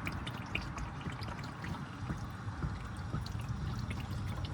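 Hot engine oil pouring in a steady stream from the open drain hole of a 2000 Honda Accord's oil pan into a drain pan, with many small spattering ticks.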